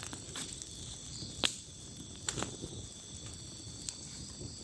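Night insect chorus: crickets chirping steadily at several high pitches, with a few sharp clicks, the loudest about one and a half seconds in.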